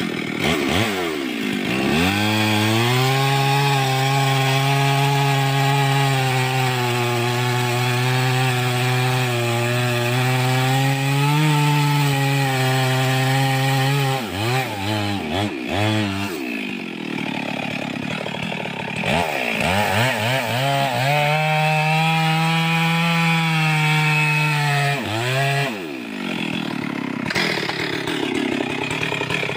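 Two-stroke chainsaw cutting through a log at full throttle, its engine note held steady under load. The throttle drops back with quick revs in between, a second long cut follows, and the saw revs up again near the end.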